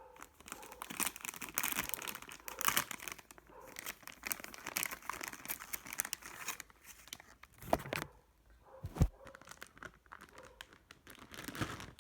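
Plastic packaging crinkling and rustling as the graphics card is unwrapped, dense for the first six seconds or so, then a few separate knocks and handling thumps.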